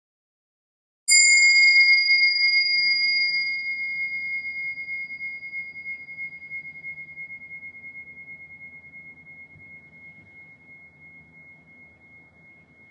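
A meditation bell struck once about a second in, ringing a single high, clear tone that fades slowly over the following ten seconds.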